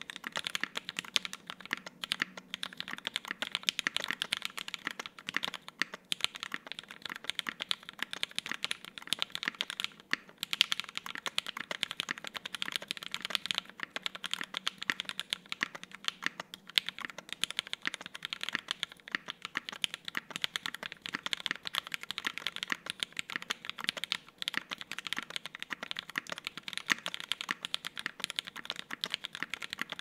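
Continuous fast typing on a KFE CE tenkeyless mechanical keyboard with lubed, filmed Hyperglide MX Black linear switches in an aluminum plate and GMK keycaps: a dense stream of keystroke clacks, with a brief pause about ten seconds in.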